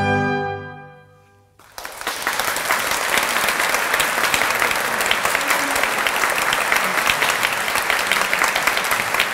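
An orchestra's final chord dies away, and about a second and a half in an audience breaks into steady applause that continues to the end.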